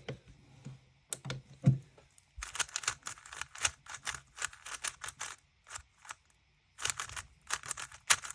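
A GAN magnetic speedcube being turned quickly by hand: bursts of rapid plastic clicking as the layers snap past the magnets, with a pause of about a second and a half past the middle.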